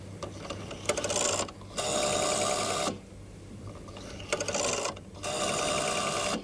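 Telephone bell ringing in pairs: two double rings about three and a half seconds apart, each a rapid metallic trill.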